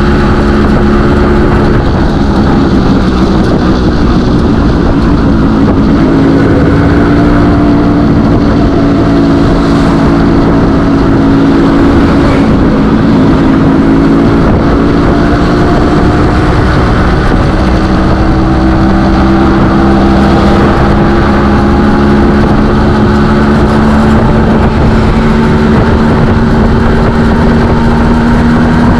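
Yamaha RX 100's two-stroke single-cylinder engine running at a steady road cruise, its pitch drifting gently with the throttle and climbing slowly toward the end, under a heavy rush of wind and road noise.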